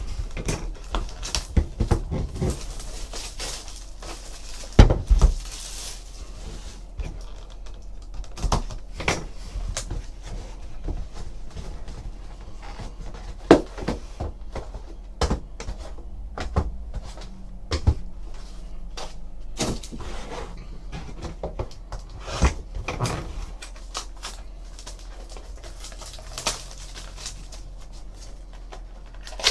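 Scattered knocks, taps and rustles of cardboard and packaging being handled as a trading card hobby box is opened and its packs taken out. The sharpest knock comes about five seconds in, over a faint steady low hum.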